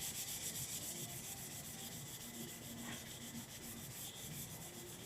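Sandpaper rubbed by hand over a 3D-printed plastic prop part in fast, even back-and-forth strokes, about eight a second.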